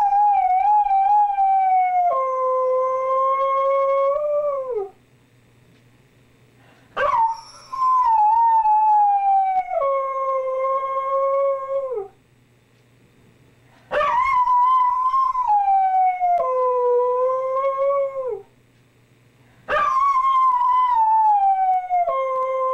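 A husky-type dog howling: four long howls with short pauses between them. Each howl starts high, steps down to a lower held note and slides off at the end.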